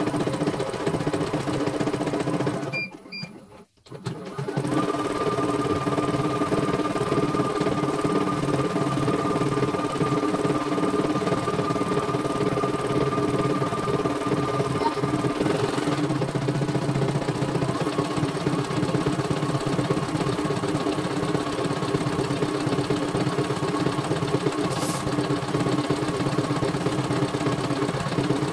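CNY E900 computerized embroidery machine running steadily, its needle stitching a design in the hoop. It stops about three seconds in, two short beeps sound, and it starts stitching again about a second later.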